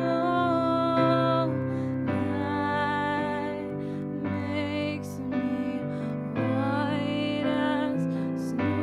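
Slow, gentle background music: a sustained, wavering melody over a bass line that changes note every second or two.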